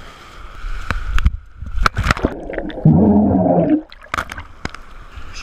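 Sea water splashing and gurgling around the camera, with one loud, muffled gurgle lasting about a second near the middle.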